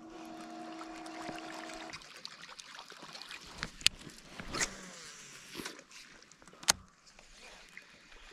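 A steady hum that stops about two seconds in, then several sharp clicks and knocks of fishing gear being handled in a small boat.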